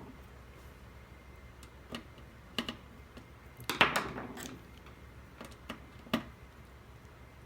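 Scattered light clicks and taps of a screwdriver and small screws while the corner screws holding an LCD TV's video board are taken out. The loudest is a short cluster of clicks about four seconds in.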